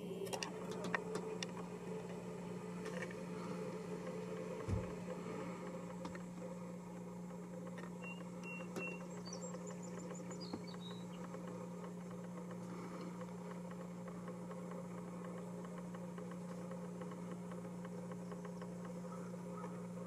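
A car's engine idling, a steady low hum heard inside the cabin. There is a thump about five seconds in, and a few faint high chirps around eight to ten seconds.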